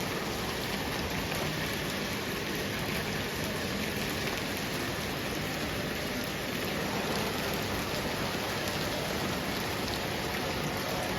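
Steady rain falling and pattering on surfaces, an even unbroken hiss of many drops.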